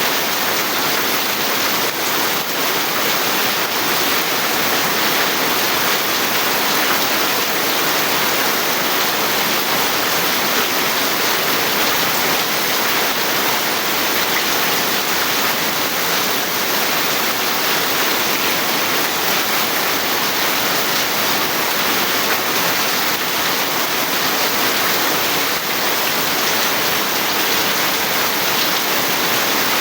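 Heavy rain falling steadily, an unbroken loud hiss.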